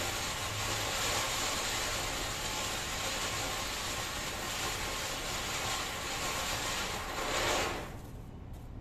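Small ground fountain firework (anar) burning with a steady rushing hiss as it throws up its spray of sparks. It swells briefly and then dies away about eight seconds in as the fountain burns out.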